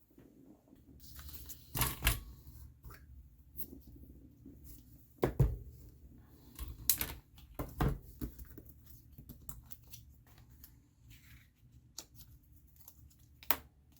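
A stamp being inked and pressed onto a paper card, with the card handled in between: scattered taps and soft knocks, and a few louder thumps.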